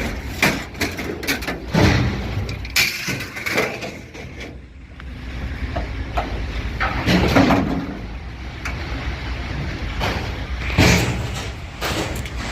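Irregular bangs and knocks, several in quick clusters, over a steady low vehicle rumble.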